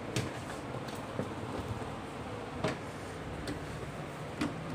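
About five light clicks and knocks from a metal PC case side panel being handled and pushed into place, over a faint steady low hum.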